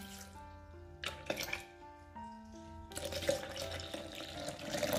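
Liquid poured into a glass blender jar over dry powder: a short splashing pour about a second in, then a longer stream of water from about three seconds, over soft instrumental music.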